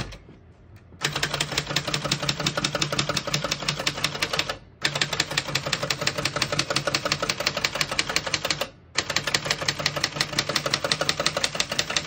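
Rapid keystrokes on a 1970s Remington Streamliner manual portable typewriter, typing fast in three runs with brief pauses about four and a half and nine seconds in.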